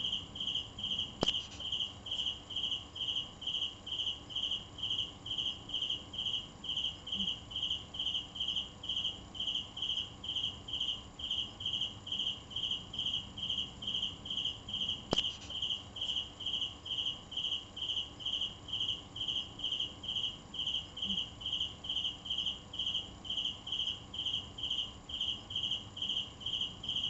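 A cricket chirping in an even, unbroken rhythm of high-pitched chirps, about two to three a second. A sharp click comes about a second in and again about halfway through.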